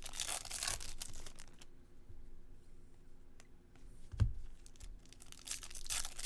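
Foil trading-card pack wrappers crinkling and cards being handled, with a soft thump about four seconds in.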